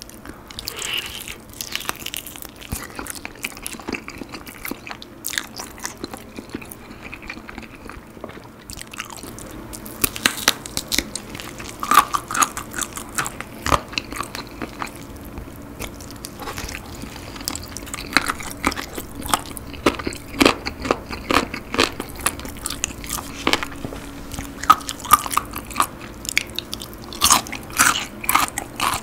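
Close-miked biting and chewing of moist, sauced chicken: wet mouth sounds with many sharp little clicks, thickening after about ten seconds.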